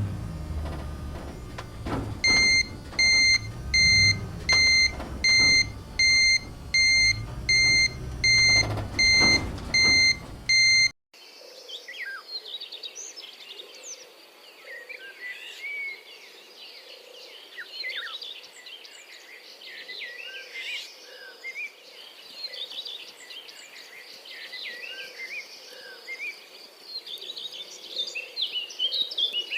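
A small motor running while an electronic beeper sounds about one and a half times a second, like a reversing alarm. After about eleven seconds this cuts off abruptly, and birds and insects chirp for the rest of the time.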